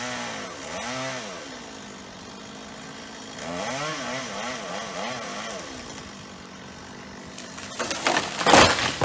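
Chainsaw revving up and down in repeated pulls as it cuts through hard, dead oak limbs. Near the end there is a loud burst of noise about a second long.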